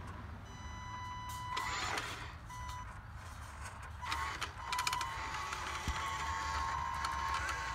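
Radio-controlled Western Star dump truck driving on dirt, its electric drive giving a steady high whine that comes in short spurts with the throttle and then runs on continuously from about five seconds in, with scattered clicks and crunches from the wheels and gears.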